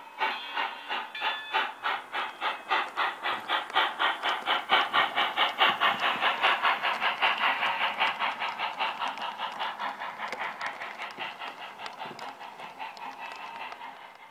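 Digital steam sound from a Bachmann On30 4-6-0 model locomotive, a Tsunami-type sound decoder played through a Hi-Bass speaker, chuffing about five times a second as the engine runs past. The chuffs grow loudest midway and fade toward the end as the train moves away.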